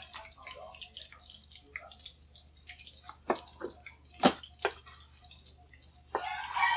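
Cleaver knocking on a wooden chopping board as vegetables are sliced, several separate strikes. A rooster starts crowing near the end.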